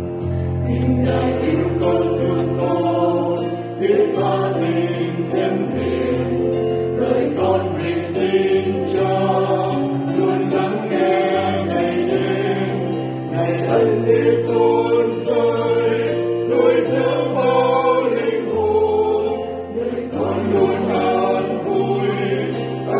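Mixed church choir of men and women singing a Vietnamese Mass setting in several parts, over held low notes that change every few seconds.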